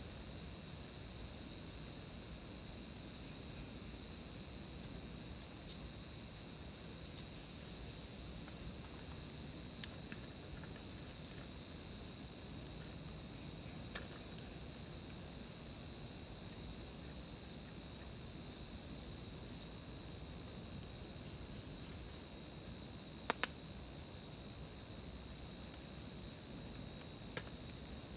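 Night insects, crickets among them: a steady high-pitched trill, with sharper, faster chirps from other insects coming and going over it in several short spells. A few faint taps show through.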